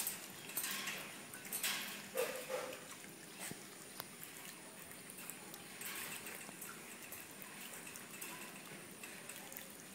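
Dog and rabbit scuffling in a wire pet cage: irregular rustling and shuffling over the first couple of seconds, a sharp click about four seconds in, then quieter faint movement.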